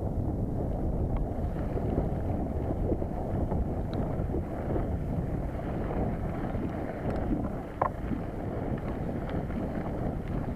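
Wind buffeting an action camera's microphone over the steady rumble and rattle of a mountain bike's tyres and frame running down a rough dirt trail, with a brief sharp knock about eight seconds in.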